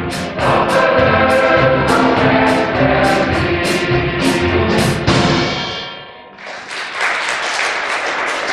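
Choir with accordions and a drum kit finishing a song over a steady drum beat. The last chord dies away about six seconds in, and the audience then applauds.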